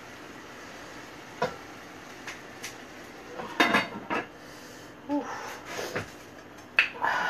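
Cooking pot and lid knocking and clattering as they are handled: a few separate clanks, the busiest just after three and a half seconds and another sharp one near the end.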